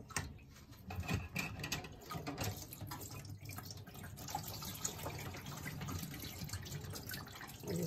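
Tap water running steadily into a stainless steel kitchen sink while dishes are washed, with a few light knocks now and then.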